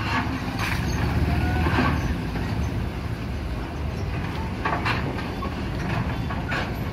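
Vehicle engines idling close by, a steady low rumble, with a few short knocks and clanks here and there.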